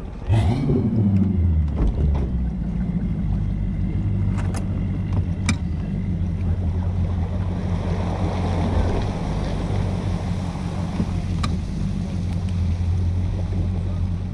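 Bass boat outboard engine starting about a third of a second in, briefly rising and falling in pitch, then settling into a steady low idle as the boat backs away from the ramp. A few sharp clicks sound over it.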